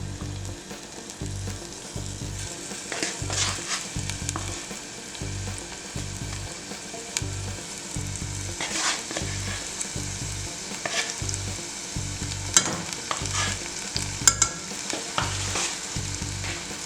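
Minced meat and onion frying in oil in a pan, sizzling steadily while being stirred, with a few sharp clicks, the loudest a little past the middle and near the end.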